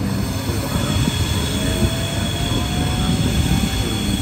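Passenger train hauled by a Škoda 69E electric locomotive running on the rails: a steady rumble of wheels on track, with a high thin tone coming in about a second in and a faint whine slowly rising in pitch.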